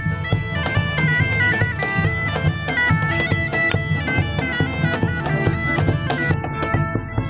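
Bagpipes playing a lively tune over a steady drone, with a large two-headed drum beaten in a regular rhythm.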